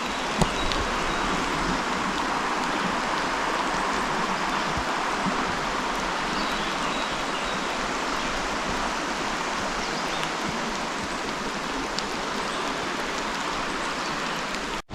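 Steady rush of flowing creek water, even throughout, with a few faint ticks; it cuts off abruptly near the end.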